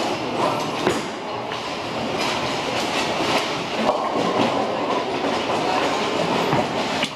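Bowling alley din: balls rolling down the lanes with a steady rumble, broken a few times by sharp clatters of pins being struck.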